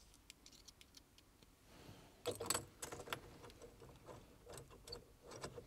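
Faint scattered clicks and light metallic jingling of small parts handled at the steering hub as the horn wires and quick-release base plate are fitted, busiest about two and a half seconds in.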